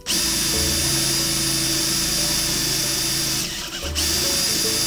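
18V cordless drill running steadily under load as a bit drills the head off a stripped screw. The motor whine eases for a moment about three and a half seconds in, then picks back up.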